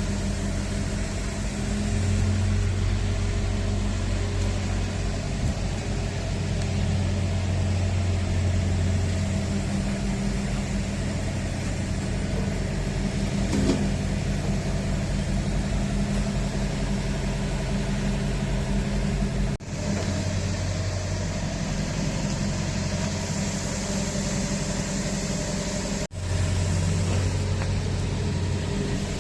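Diesel engine of a Liugong 913 excavator running steadily at working revs during a test-run, its low hum growing heavier in stretches. It drops out for a moment twice, about twenty and twenty-six seconds in.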